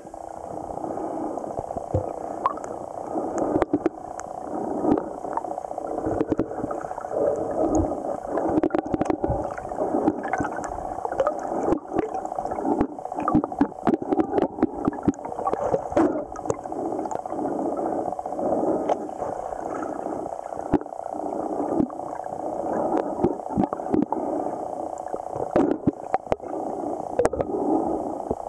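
Stream water heard underwater: a muffled, continuous gurgling rush with scattered short clicks and knocks.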